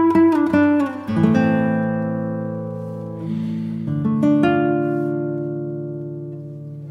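Background music on acoustic guitar: a run of quick plucked notes, then two chords, about a second in and about four seconds in, each left to ring out and fade.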